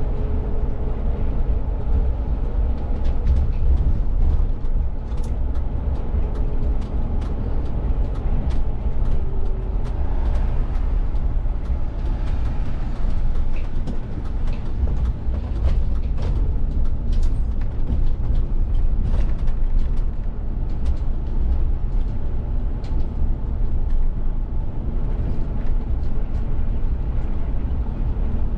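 Cab of a VDL city bus on the move: a steady low rumble from the drivetrain and tyres, with scattered light clicks and rattles.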